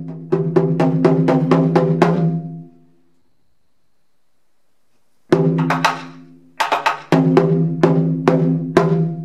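Taiko drum (nagado/chu-daiko on a slanted stand) struck with wooden bachi. A fast run of hits grows louder, ends on a big hit about two seconds in and rings out. After a pause of about two seconds come two single big hits, then a steady rhythm of strokes from about seven seconds in.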